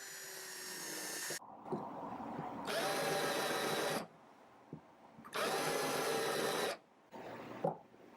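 Power drill working into 2x4 construction timber in two steady bursts of about a second and a half each, after a quieter steady run at the start.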